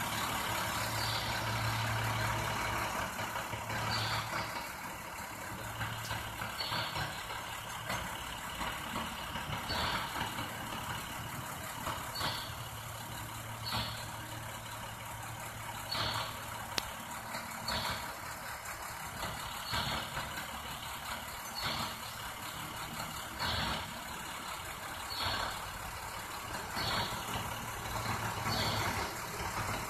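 Diesel engine of a rear-loading garbage truck idling steadily while the truck stands parked. A short high chirp repeats about every two seconds over the idle.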